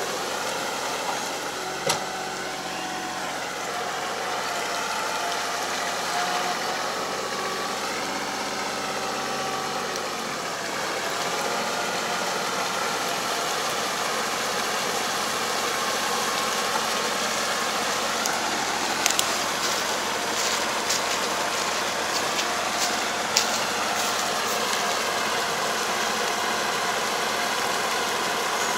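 Tractor engine running at a distance as it pulls a drive harrow through a flooded rice paddy, puddling the field; its pitch wavers up and down. A few sharp clicks in the second half.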